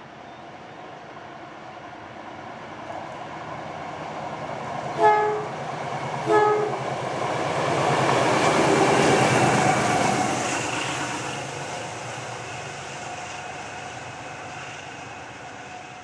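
Two diesel locomotives running light engine, led by ex-South Australian Railways 830 class ALCo DL531 No. 872, approaching and passing: the engine sound builds to a peak about eight to ten seconds in, then fades away. The horn gives two short blasts, about five and six and a half seconds in.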